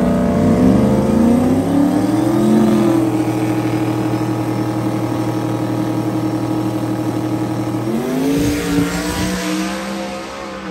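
A drag car's engine at full throttle, its pitch climbing in several quick rises as it shifts up through the gears, then holding one steady high note for about five seconds as it slowly fades. Around eight seconds in, the pitch drops and climbs once more before dying away.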